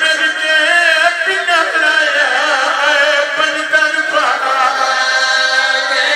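A man's voice chanting a mournful majlis lament in long, held melodic phrases with a wavering pitch, heard through a microphone, with a falling glide about four seconds in.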